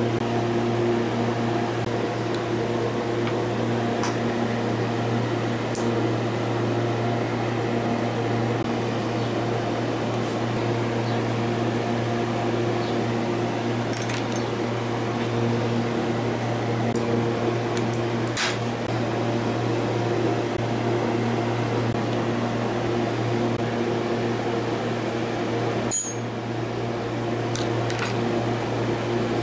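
Steady low machine hum in a workshop, with a few light clicks and taps as small metal motor parts are handled.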